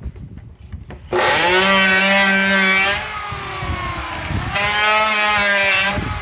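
Electric wood planer switching on about a second in and running with a high-pitched motor whine and cutter hiss. Its level drops about three seconds in and rises again about a second and a half later.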